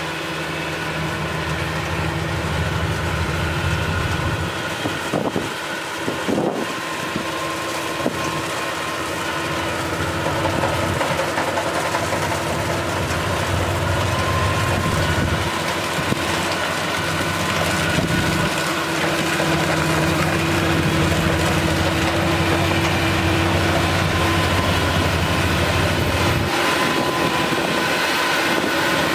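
Kubota DC-35 rice combine harvester running steadily, its diesel engine and machinery making a continuous drone with a hiss over it.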